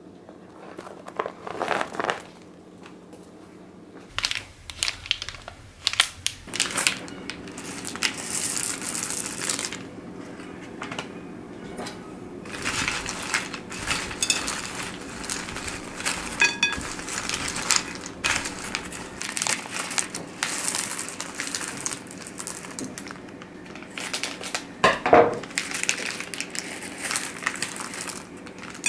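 Popcorn, pretzels and peanut butter cups being tipped into a large bowl and stirred with a wooden spoon: dry crunchy rustling and scraping in uneven bursts. Small candy bags crinkle as Reese's Pieces are poured in.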